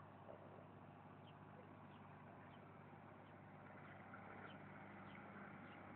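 Near silence: a faint steady low hum, with faint soft ticks now and then.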